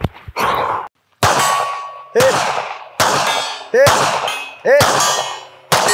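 Pistol shots at steel plate targets, about one a second, each hit followed by the steel ringing out.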